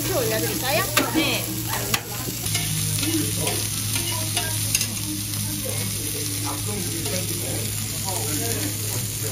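Pork neck and other pork cuts sizzling steadily on a Korean barbecue griddle plate over a gas burner. Metal tongs click against the griddle a few times as the meat is turned.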